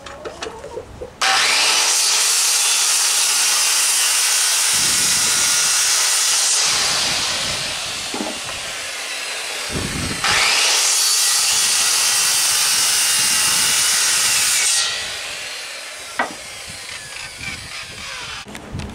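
Corded circular saw cutting a wooden board twice. Each cut starts abruptly and runs loud for about five seconds, then the blade winds down. The second cut begins about nine seconds after the first.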